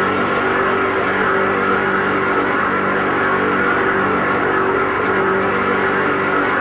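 Steady machine drone with a low, even hum that does not change in pitch or level.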